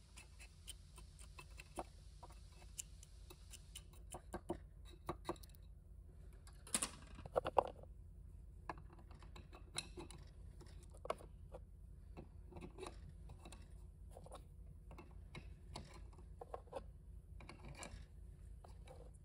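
Faint, scattered clicks and taps of transmission solenoids and their connectors being pressed and seated into a VW 01M/01P valve body by hand, over a steady low hum. A louder scraping rustle comes about seven seconds in.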